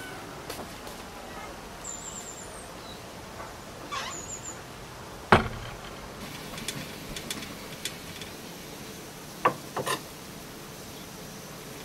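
Footsteps and handling noise as things are moved and set down, with a sharp knock about halfway through and three quick knocks near the end. A small bird twitters briefly twice in the first half.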